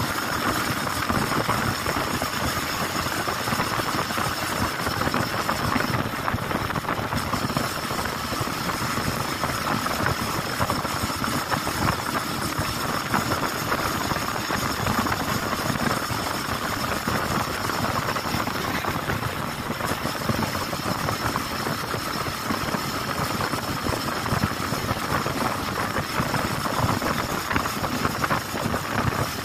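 Motorcycle engine running at a steady cruising pace while riding, picked up by a camera mounted on the bike, under a steady rush of wind and road noise.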